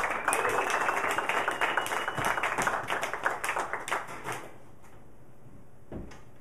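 A small audience applauding, with a thin high tone held over the first two seconds; the clapping thins out and stops about four seconds in.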